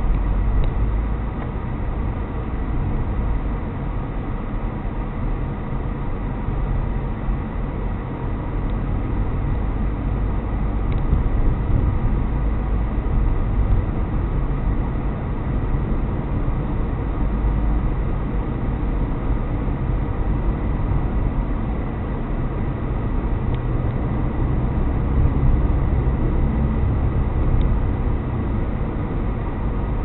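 Steady road and engine noise inside a moving car's cabin: a continuous low rumble of tyres and engine, with a faint steady high whine.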